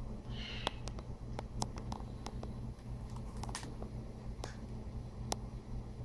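African grey parrot cracking and nibbling an in-shell almond with its beak: irregular sharp clicks and cracks, about a dozen, over a low steady hum.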